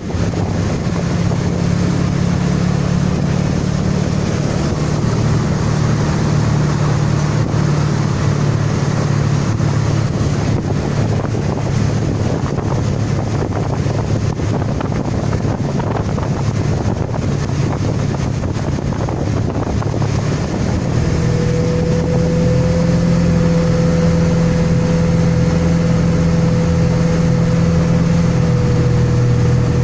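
Wakeboard boat's engine running steadily while underway, with wind buffeting the microphone and water rushing along the hull. About two-thirds of the way in the engine gets a little louder and a steady higher whine joins.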